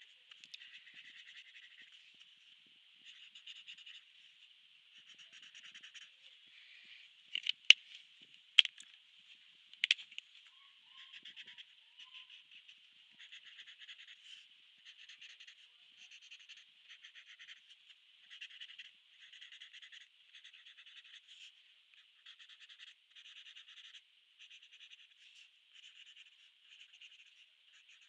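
Felt-tip marker tips scratching across paper in short, quick strokes while colouring. A few sharp clicks come about a third of the way in, as the marker is swapped and a cap pulled off.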